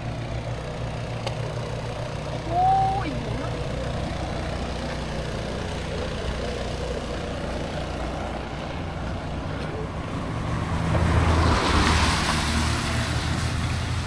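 A motor vehicle's engine running steadily, with a vehicle passing close and growing louder about three-quarters of the way through. A brief whistle-like chirp sounds about two and a half seconds in.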